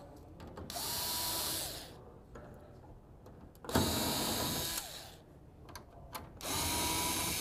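Cordless electric screwdriver running in three short bursts of about a second each, its motor whine rising as it spins up and dropping as it stops, backing out the Phillips screws that hold a lid dispenser's housing. Faint clicks come between the bursts.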